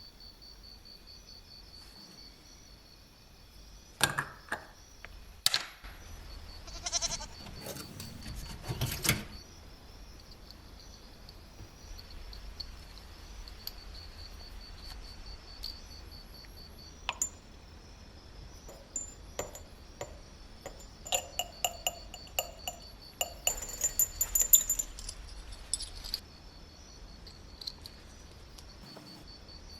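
Small metal parts being handled: scattered sharp clicks and clinks, with a busy run of light metallic clinks in the last third. A faint, steady high-pitched tone sits underneath throughout.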